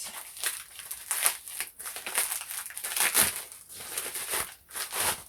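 Packaging crinkling and rustling in the hands as a pack of thermal label rolls is unwrapped, in an uneven run of crackles with no steady rhythm.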